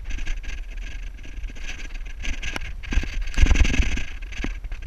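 Handling noise from a camera worn by a moving airsoft player: clothing and gear rustling and scuffing, with scattered clicks and a louder rumbling knock about three and a half seconds in.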